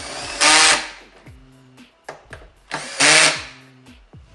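Handheld power drill running in two short bursts, each about half a second, the motor whining up to speed and stopping.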